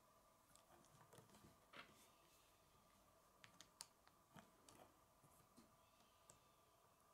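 Faint, scattered clicks and taps of plastic K'nex pieces being handled and snapped onto a rod, over near-silent room tone.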